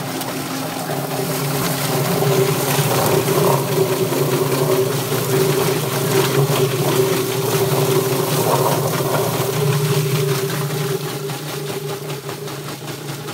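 Yardbird chicken plucker running: the motor hums steadily as the drum's rubber fingers spin a scalded chicken, with a noisy rush and light knocking from the tumbling bird. It grows a little louder about two seconds in.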